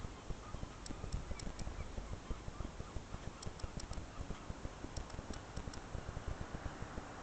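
Wind rumbling on the camera's microphone, with scattered light high ticks in small clusters about a second in, again around three and a half seconds in, and near five seconds.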